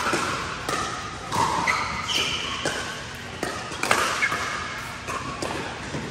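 Irregular sharp thuds and bangs echoing in a large hall, about a dozen of them, with short high squeaks between them.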